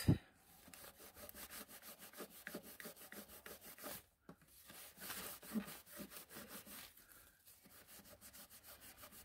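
A paper towel rubbed quickly back and forth against a toy pony's plastic hoof, scrubbing off old sticker residue softened with Goo Gone. The strokes are faint and rapid, with a brief pause about four seconds in.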